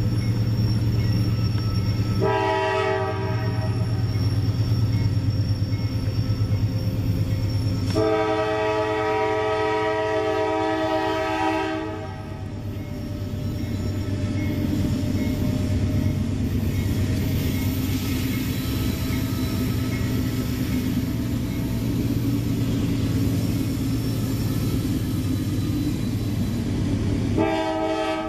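CSX freight train's diesel locomotives approaching with a steady low rumble, the lead locomotive sounding its multi-note air horn: a short blast about two seconds in, a long blast of about four seconds from eight seconds in, and another blast starting near the end.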